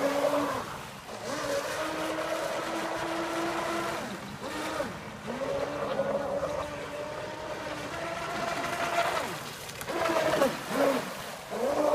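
Motor of a fast radio-controlled speedboat running at high revs with a steady whine. The pitch drops and climbs again several times as the throttle is eased and reopened through the turns.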